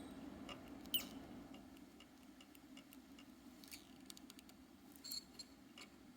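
Smoke detector's piezoelectric buzzer, fed with DC from a bench power supply, giving faint, irregular ticks and small clicks. The strongest click comes about a second in, with a brief falling chirp after it.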